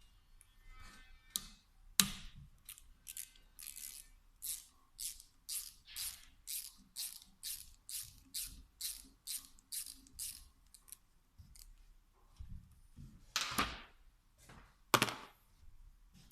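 Hand tool working bolts on a VE diesel injection pump: about two even rasping strokes a second for several seconds, as from a ratchet wrench swung back and forth, then two sharp metal knocks near the end.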